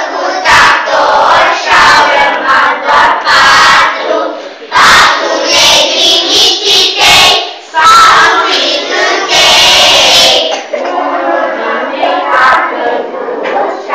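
A group of young children chanting or shouting a rhyme together in unison, loud enough to overload the recording in places.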